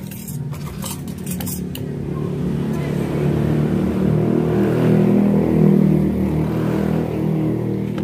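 A motor vehicle's engine running close by, growing louder to a peak about five to six seconds in and then easing off, with a few sharp clicks in the first two seconds.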